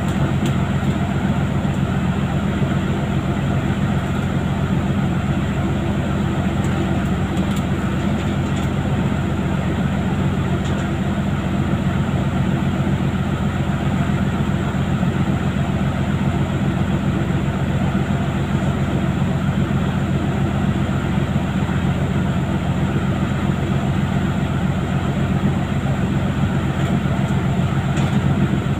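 Steady low drone of a pole-and-line fishing boat's engine, with rushing water and a few faint knocks.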